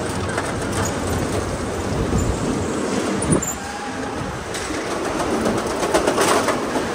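Go-kart driving over a smooth concrete track, heard from aboard: a steady rumble of wheels and chassis, with a sharp knock about halfway through and a cluster of rattles near the end.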